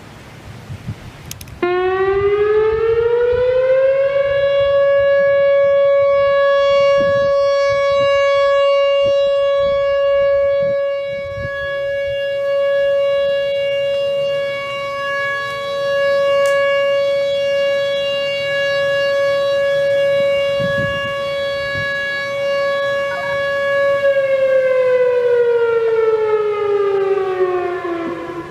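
Whelen WPS-3016 electronic outdoor warning siren sounding a steady alert tone at about 560 Hz. It starts about a second and a half in and glides up in pitch over a couple of seconds. It holds one buzzy, overtone-rich pitch for about twenty seconds, then winds down in pitch near the end.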